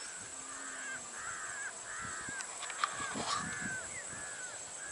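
Crows cawing over and over, a run of short calls one after another, with a few clicks and one sharp click about halfway through.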